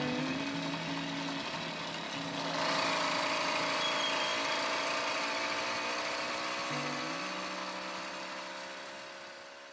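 Two-stroke Firestorm 80 motorized-bicycle engine running on the move, louder from about two and a half seconds in, then fading out near the end.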